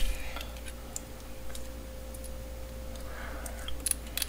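A few light clicks and taps of small vape atomizer parts and their plastic packaging being handled and set down on a table, with a small cluster of clicks near the end, over a faint steady hum.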